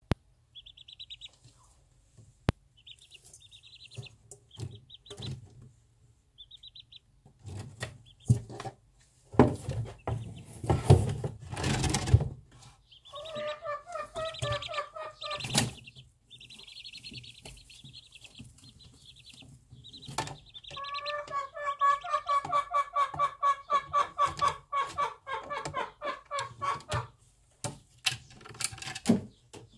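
Bantam hen and her chicks in a hay nest: the chicks give short high peeps off and on, and the hen answers with low clucks that become a long, fast run of rhythmic clucking in the second half. A burst of rustling in the hay comes about a third of the way through as the birds shift under her.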